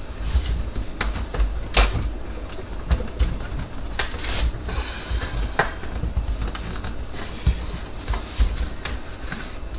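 Scattered small clicks and knocks of plastic and rubber as hands push a rubber hose connector, its clamp already fitted, onto a dishwasher's plastic sump housing. A few sharper clicks stand out, about two and four seconds in.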